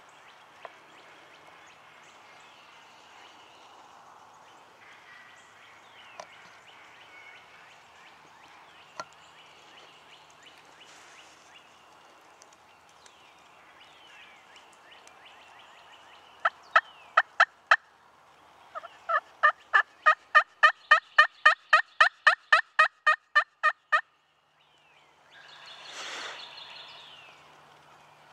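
Wild turkey calling: a short run of sharp, loud yelps, then a longer series of about twenty loud yelps at roughly four a second. Near the end comes a rougher, rattling gobble.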